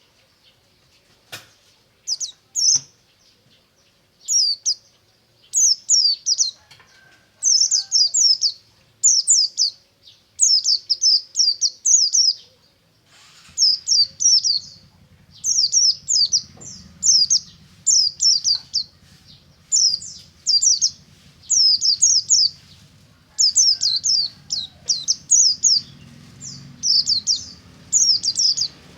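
A white-eye (pleci) singing: a run of short, quick phrases of high downward-sweeping notes, about one a second with brief pauses between. A low hum comes in about halfway through.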